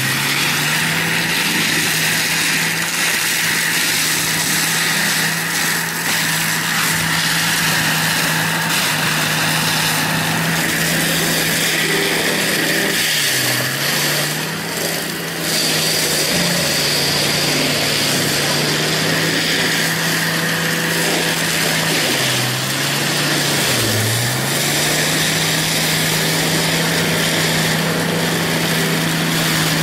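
Diesel engine of a tracked land-clearing machine running hard as its front cutter grinds through brush and stumps, with a steady harsh grinding noise over it. The engine note dips briefly in pitch a few times as the cutter bites and the load comes on, then recovers.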